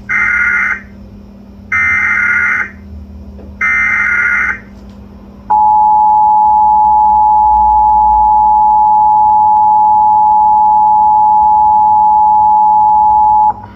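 Emergency Alert System activation: three short bursts of the warbling SAME digital header, about two seconds apart, then the EAS two-tone attention signal, a loud steady dual tone held for about eight seconds. Together they herald a severe thunderstorm warning.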